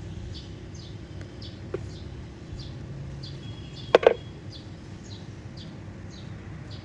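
Short high chirps repeating evenly about twice a second, over a low steady hum. About four seconds in, two sharp clicks come in quick succession and stand out as the loudest sound.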